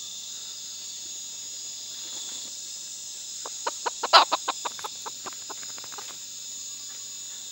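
A chicken clucking in a quick run of short clucks lasting about three seconds, the loudest just past the middle, over a steady chorus of crickets.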